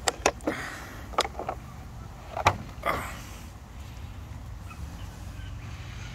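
About six sharp clicks and knocks in the first three seconds, then a steady low rumble.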